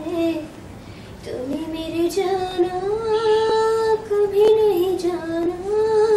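A young woman singing unaccompanied, in long held notes; after a short pause near the start, her voice scoops up into a note and sustains it through the rest.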